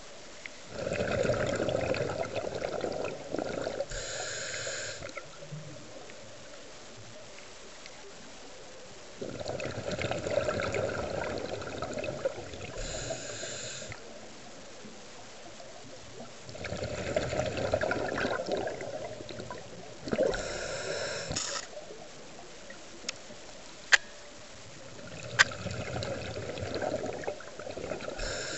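Scuba diver breathing through a regulator underwater, four breaths about eight seconds apart: each a few seconds of bubbling exhaled air, then a short hiss of inhalation. Two sharp clicks come about two-thirds of the way through.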